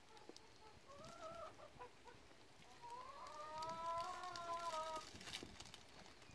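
A hen calling: a short call about a second in, then a long drawn-out call of about two seconds that rises slightly and then falls away, with faint clicks.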